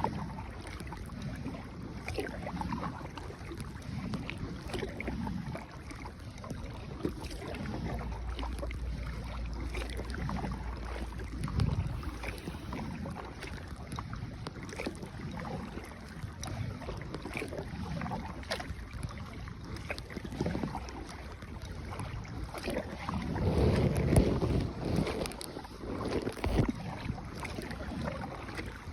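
Water splashing and swishing as a small boat is paddled along, with repeated paddle strokes, wind buffeting the microphone, and a louder splashing stretch near the end.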